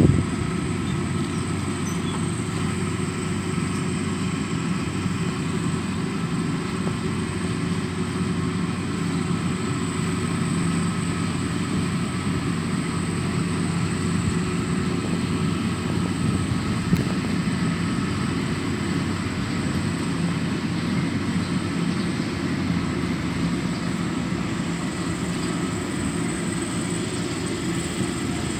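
Rice combine harvester running steadily: a low diesel engine hum with a thin high whine from the machinery, and one short click about two-thirds of the way through.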